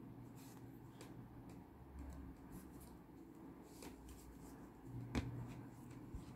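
Faint handling sounds of crochet: soft, scattered ticks and rustles from a crochet hook and thread worked in the hands, with one sharper click about five seconds in, over a low steady hum.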